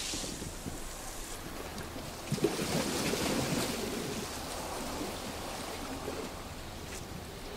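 Sea waves washing over beach rocks, with one wave breaking in a sharp splash about two seconds in, then a hiss of water that slowly fades.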